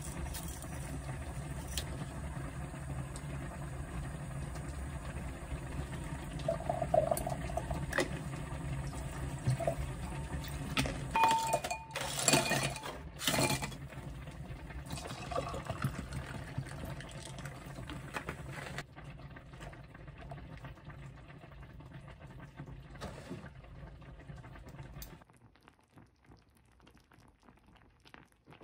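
Liquid poured into a glass, with a few knocks and clinks around it, a little before halfway through. A steady low hum runs underneath and cuts off a few seconds before the end.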